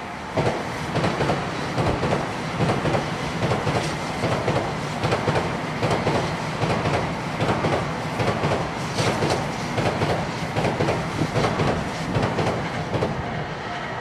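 Tokaido Shinkansen N700 series (2000 subseries) train running past close by: a steady rush of wheels on rail with a rhythmic clatter, about two beats a second, as the cars go by. It eases a little near the end as the last car passes.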